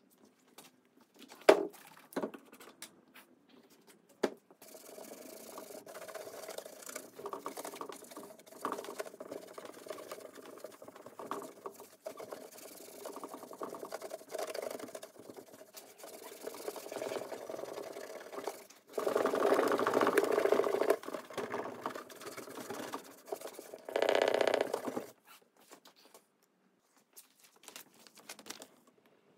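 A cloth rubbed back and forth over a mahogany-veneered tabletop in polishing strokes: a steady rubbing scrape that grows louder in two short stretches toward the end, after a few sharp knocks at the start.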